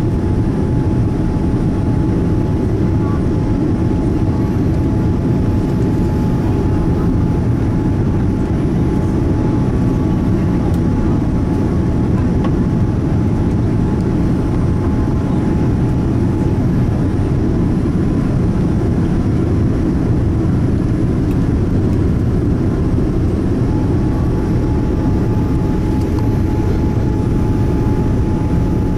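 Steady low roar inside the cabin of a Boeing 787 Dreamliner in flight, from its engines and airflow, with a faint steady whine above it.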